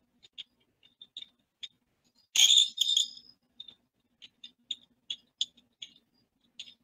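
Light, irregular clicking at a computer, about two clicks a second, with a louder noisy burst a little over two seconds in and a faint low hum underneath.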